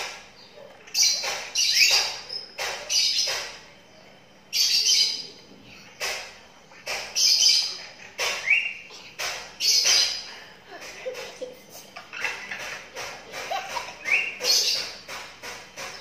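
Twelve-day-old lovebird chick giving repeated harsh, hissy chirping calls, roughly one a second and irregular, a few ending in a short rising squeak, with sharp clicks between them.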